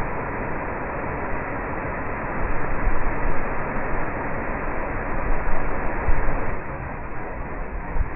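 Bridal Veil Falls' rushing water, a steady dense noise, with uneven low rumbles swelling in the middle.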